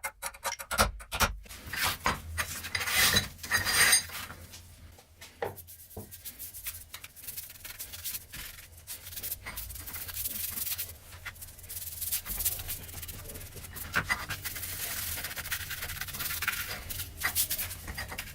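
Irregular hand rubbing, with a quick run of clicks and light knocks in the first couple of seconds.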